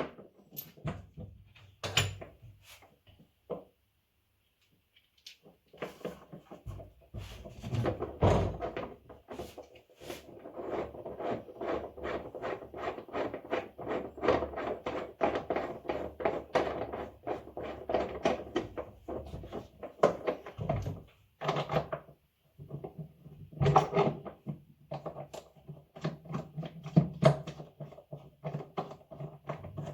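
Light knocks and taps in quick runs, about three a second with short pauses: hand work on a washing machine tank while an oil seal and bearings are being fitted.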